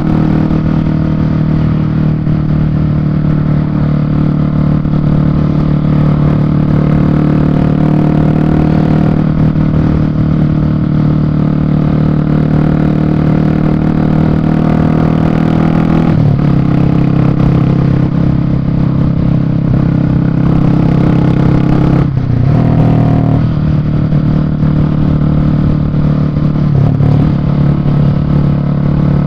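Yamaha Fazer 250's single-cylinder four-stroke engine running through a loud exhaust while riding. The engine note holds steady, dipping briefly about halfway through and twice more near the end.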